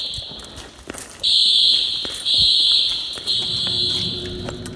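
Simplex fire alarm horn sounding in a temporal-three evacuation pattern: a pause of about a second, then three loud, high-pitched blasts of roughly a second each, the last trailing off near the end.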